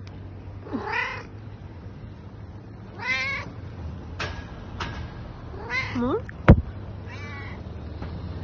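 Cat meowing four times, short calls that bend in pitch, about two seconds apart. One sharp knock just after the third meow is the loudest sound, over a low steady rumble.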